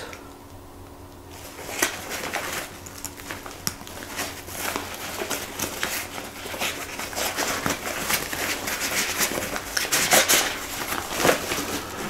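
Nylon backpack fabric rustling and scraping as a thick flashlight is worked into its top pocket, under the rubberized loops: many small irregular scuffs and crinkles that start about a second in.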